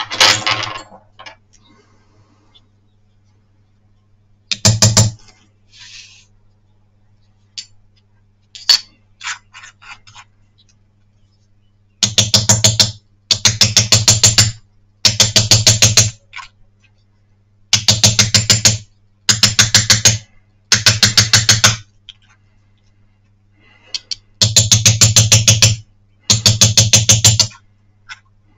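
A small steel hammer taps rapidly on a hand punch, driving gold wire into the cross-hatched surface of a steel plate in traditional damascening. The first half holds a few scattered clicks and knocks. From about halfway the hammering comes in bursts of about ten quick, sharp taps a second, each burst about a second long, with short pauses between.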